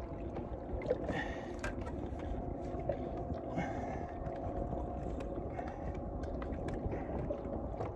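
Scissors clicking and crunching as they cut out a large carp's gills to kill it, in scattered small snips over a steady low rumble.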